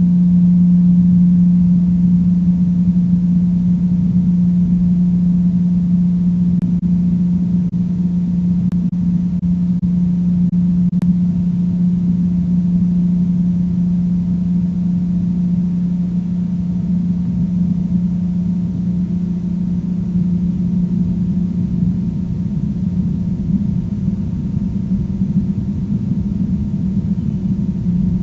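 A loud, steady low-pitched hum, holding one pitch over a rumbling undertone, the strange and unpleasant sound heard on a calm morning.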